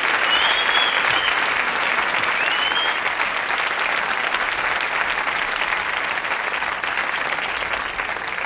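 Crowd applauding and cheering, with a couple of sharp whistles in the first few seconds, gradually getting quieter.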